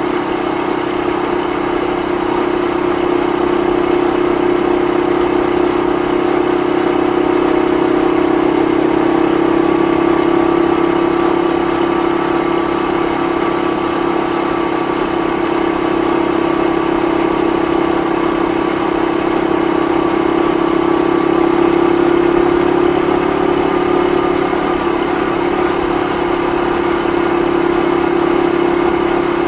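Honda Super Cub 50 (AA01, carbureted) with its air-cooled four-stroke single-cylinder engine running at a steady cruising speed, heard from the rider's seat.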